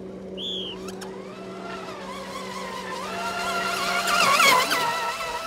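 Radio-controlled racing boats speeding across the water, their motors' high whine rising in pitch and growing louder. It is loudest as the boats pass close, a little before the end, then eases off.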